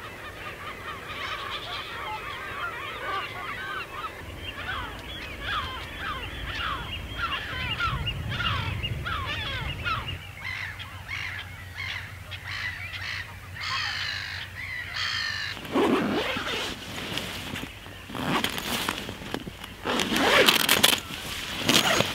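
A flock of geese honking over and over, many short calls overlapping. About two-thirds of the way through the calls give way to loud rustling of sleeping-bag fabric close to the microphone.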